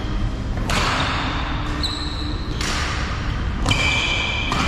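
Badminton rally: rackets smack a feather shuttlecock four times, about one to two seconds apart, with short high squeaks from players' shoes on the court floor between hits.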